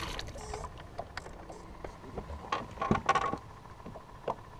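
Scattered clicks and light clatter of fishing gear being handled in a boat, with a quick cluster of knocks about three seconds in.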